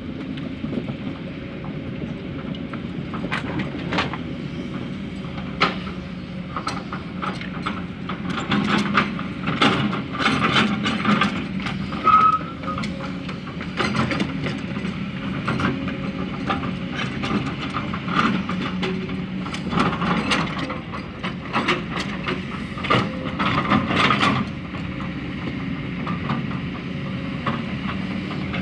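Heavy diesel earthmoving machinery running steadily, with a long run of metallic clanks and knocks from about three seconds in until near the end, densest in the middle, and a brief high squeak about twelve seconds in.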